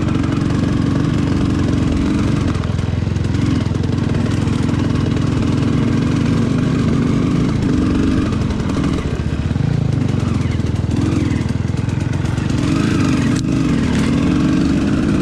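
Enduro motorcycle engine running under load on an uphill trail climb, the revs rising and falling with the throttle.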